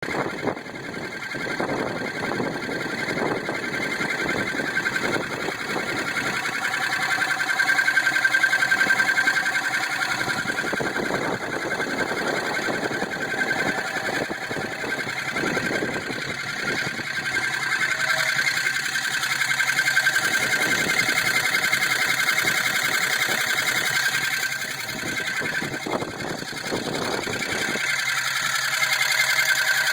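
2002 Jeep Grand Cherokee 4.7 V8 engine running with a steady, rapid clicking. The cause is unknown to the owner: the engine has full power, is not missing, and has good oil pressure.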